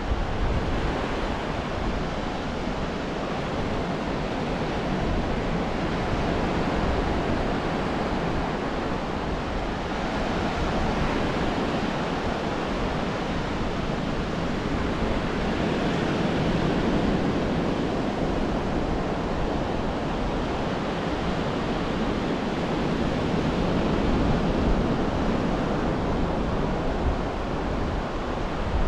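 Ocean surf washing steadily onto a sandy beach, swelling and easing every several seconds, with a low rumble of wind on the microphone underneath.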